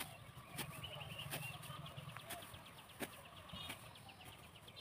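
A bird calling in a rapid series of short high notes, with a few soft clicks.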